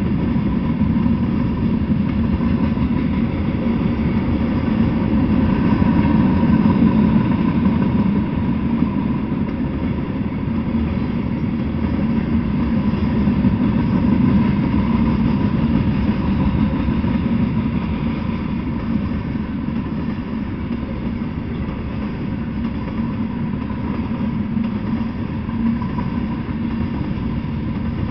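Freight train of tank cars rolling past at close range: a steady rumble of steel wheels on the rails.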